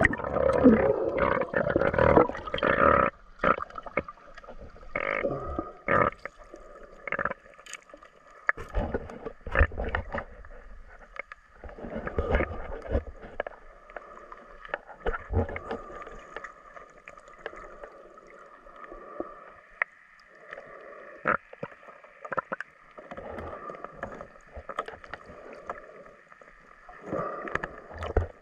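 Muffled sound through a camera's underwater housing as it goes under the water: a loud rush of splashing in the first few seconds, then scattered knocks and thumps of hands and gear moving underwater, over a faint steady tone.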